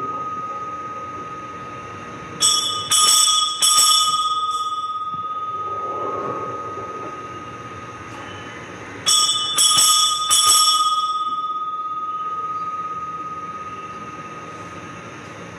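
Altar bells rung at the elevation of the consecrated host: two sets of three rings about six seconds apart, each ring left to shimmer before the next. A steady high tone sounds faintly underneath.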